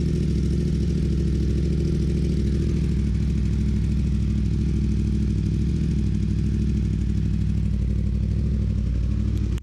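2018 Yamaha R1's crossplane inline-four idling steadily through a newly fitted Two Brothers full exhaust with the catalytic converter deleted, on its first start-up after the install, while the pipe joints are checked for exhaust leaks.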